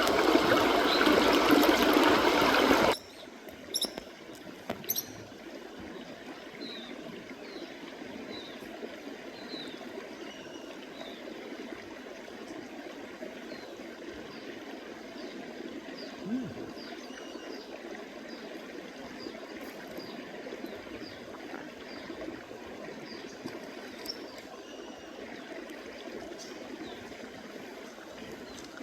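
Loud, even rushing noise for about three seconds that cuts off abruptly, then a steady trickle of flowing water with a run of short, high bird chirps and a few small clicks.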